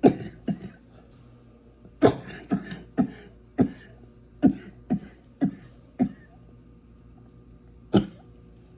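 A series of about ten short, sharp taps at uneven spacing, with one more near the end: trading cards being set down one by one onto a pile on a table.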